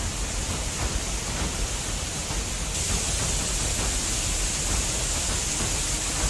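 Floodwater torrent rushing and churning, a steady hiss of noise with no let-up; the hiss turns brighter a little under halfway through.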